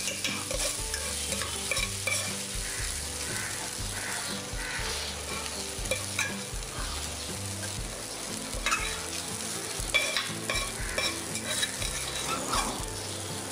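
Metal spoon stirring and scraping a sizzling tadka of fried onion, green chilli and tomato around a stainless steel kadai, with occasional clinks of spoon on steel as it is scooped out into a bowl.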